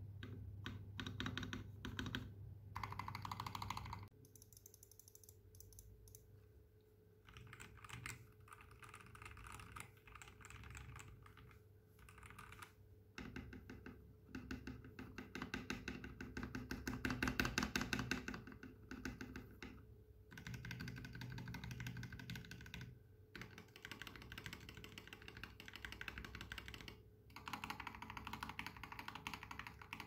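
Rapid, repeated key presses on a Matthew Tech MK80 mechanical keyboard with Gateron Milky Yellow switches and a brass plate, mainly on the spacebar. The spacebar's stabilizer is relubed and band-aid and Holee modded, and about halfway through it wears a plastic keycap from another set. The clicks come in dense runs separated by short pauses.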